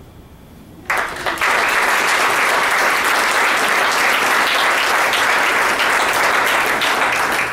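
Audience clapping: starts suddenly about a second in and holds steady until near the end.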